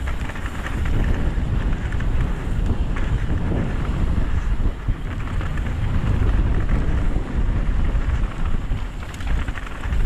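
Wind buffeting an action camera's microphone during a fast mountain bike descent, over the rumble of knobby tyres rolling on a dirt and gravel trail.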